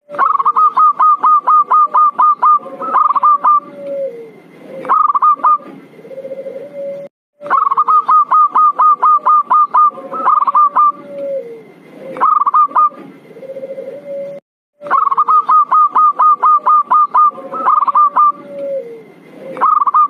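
Zebra dove (perkutut) lure call played as a looped recording: a fast run of short clipped notes followed by lower, softer cooing notes, with the whole phrase repeating about every seven seconds and broken by brief silent gaps where the loop restarts.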